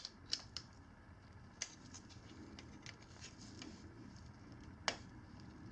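Scattered light metallic clicks and taps of a hand tool working the pin and side plate out of a 420 drive chain link whose rivet heads have been ground off, with a sharper click about five seconds in.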